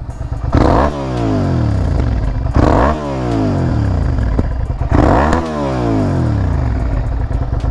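Suzuki SV650S V-twin with a Scorpion exhaust, idling and blipped three times, about two seconds apart, with the revs falling away after each blip.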